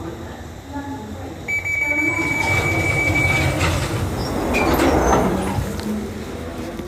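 London Underground Jubilee line train on the move: a high, steady squeal from the wheels for about two seconds, then a rush of track noise that swells and fades.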